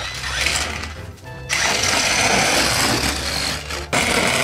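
Radio-controlled inflatable Minion toy's small electric drive motor whirring as it drives across concrete, dropping off briefly about a second in and then running again, over background music.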